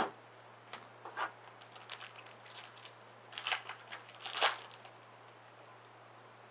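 A card laid on the table with a light tap, then a trading-card pack's wrapper crinkling and being torn open, with the loudest rustling bursts about three and a half and four and a half seconds in.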